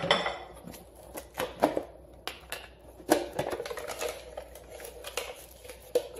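Irregular clicks, taps and knocks of plastic food containers and packaging being handled and set down on a kitchen countertop.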